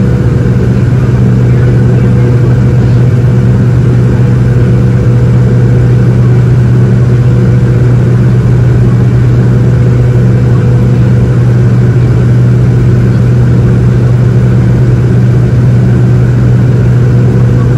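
Steady, loud engine drone inside the cabin of a McDonnell Douglas MD-88 jet airliner, from its rear-mounted Pratt & Whitney JT8D turbofans: a constant low hum with fainter higher tones over an even rushing noise.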